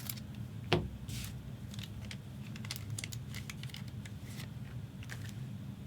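Trading cards being handled and shuffled: light rustles and clicks of card stock sliding, with one sharper knock under a second in, over a steady low hum.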